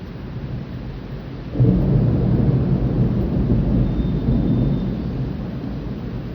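Thunder during a storm: a low rumble breaks in suddenly about one and a half seconds in and goes on for several seconds before easing off, over a steady hiss of rain.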